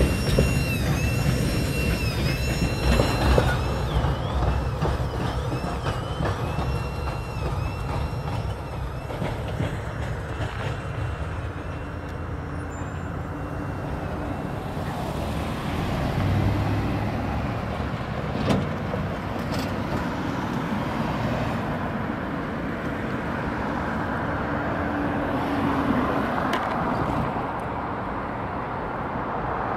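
Grade-crossing warning bell ringing in a steady repeating pattern as a train's last cars rumble past. The bell stops about ten seconds in as the crossing gates lift, leaving road vehicles' engines running as traffic moves off.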